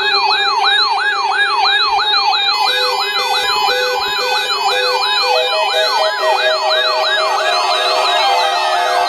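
Layered electronic alarm tones: a siren-like tone sweeping up and down about three times a second over several steady tones, with a higher warbling tone on top. An edited, distorted version of a weather-radio warning alarm.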